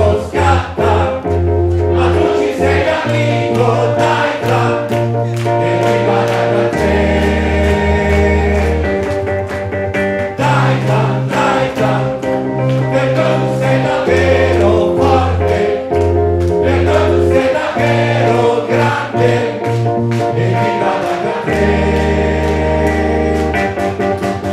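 Live pop song: a man singing into a microphone over electronic keyboard accompaniment, with a bass line that changes note every second or two and a steady beat.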